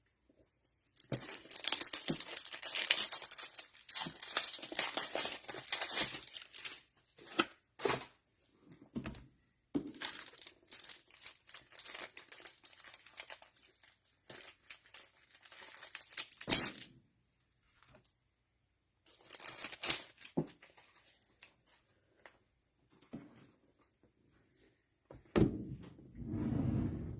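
Plastic wrapping being torn and crinkled while a trading card box is opened and its cellophane-wrapped card packs handled: a long rustling stretch at the start, then shorter bouts of crinkling with pauses. A couple of knocks, one about two thirds through and one near the end.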